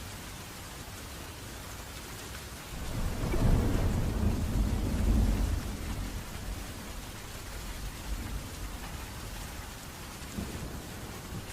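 Steady rain with a roll of thunder that swells about three seconds in, rumbles for a few seconds and fades back into the rain.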